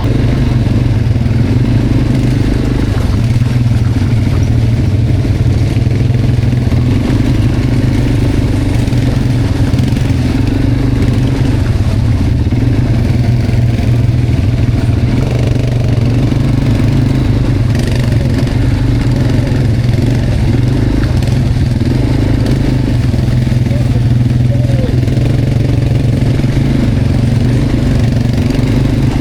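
Quad bike (ATV) engine running steadily, with a constant low hum and little change in level.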